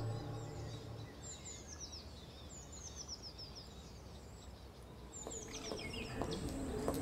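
Small birds singing in repeated short phrases of quick, high, falling chirps over a faint outdoor background. The tail of the background music fades out in the first second. About five seconds in, a steady low tone and a few light knocks come in.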